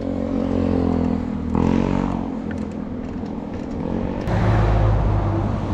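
Motor vehicle engine running with a steady hum in road traffic. The sound changes abruptly about one and a half seconds in and again after about four seconds, the last part carrying a heavier low rumble.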